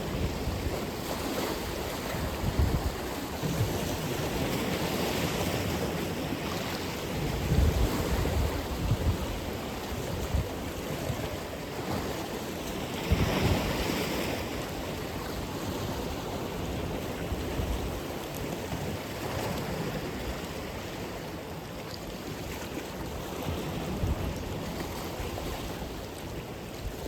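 Atlantic Ocean surf: waves breaking and washing ashore in a steady rush that swells and ebbs, with a bigger wave breaking about halfway through. Low gusts of wind buffet the microphone.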